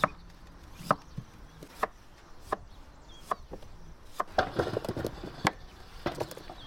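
Large chef's knife slicing through a peeled raw potato and knocking on a wooden cutting board, a sharp knock roughly every second. In the second half, a quick clatter of small knocks as the potato slices are slid off the board into a steel pot.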